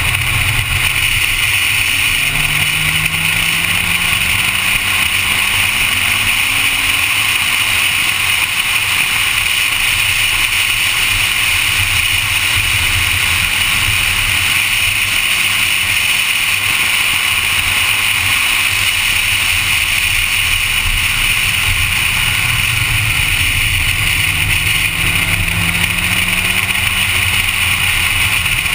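Honda Civic on a track lap: the engine runs under steady wind and road noise. Its pitch climbs twice, a few seconds in and again near the end.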